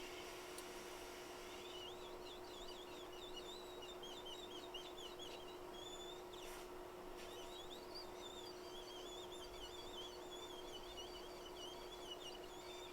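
Faint continuous bird warbling, a rapid wavering high-pitched song starting about a second and a half in, over a steady low hum. There is one short click about six and a half seconds in.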